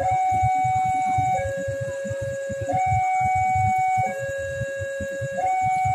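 Railway level-crossing warning alarm sounding a two-tone high-low signal, each tone held about a second and a half before switching, warning that a train is approaching. A low, uneven rumble runs beneath it.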